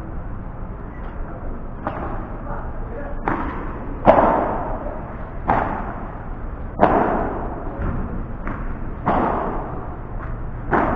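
Padel rally: the ball struck by padel rackets and bouncing on the court, a series of about ten sharp knocks, roughly one a second, some followed by a short ringing tail.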